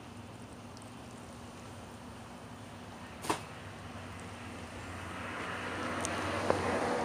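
Steady low hum with a single sharp click about three seconds in, then a rustling noise that grows louder over the last two seconds.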